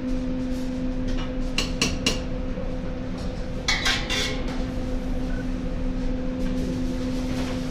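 Metal utensils clinking against pots and pans, a few quick clinks about a second and a half in and another cluster about four seconds in, over a steady low hum.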